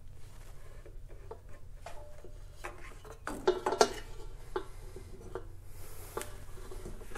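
Needle-nose pliers clinking and scraping against the C8 Corvette's transmission canister filter and its metal housing as the filter is gripped and worked loose. Small scattered metallic clicks and rattles, with a busier, louder cluster about three and a half seconds in.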